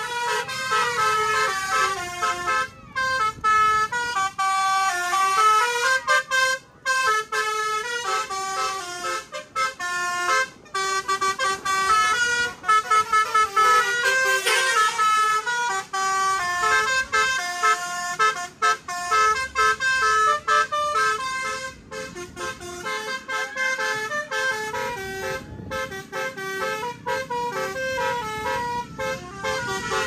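Bus's basuri telolet air-horn module playing a melody: a quick run of horn notes that step up and down in pitch, often several horns sounding together, with brief gaps between phrases.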